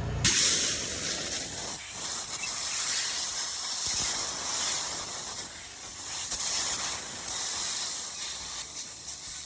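Compressed air at about 125 psi hissing loudly through a dryer vent line from an air hose, blowing lint and debris out of the duct. It cuts in abruptly just after the start.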